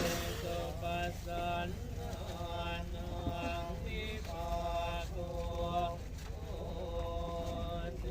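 A man chanting a Buddhist incantation in a steady, droning voice over a low hum.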